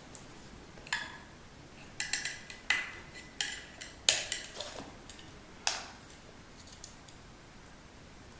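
A small screwdriver clicking and scraping against a circulator pump's shaft and mechanical seal parts as they are pried off. It makes a series of short metallic clinks, clustered about two to three seconds in, with the loudest about four seconds in.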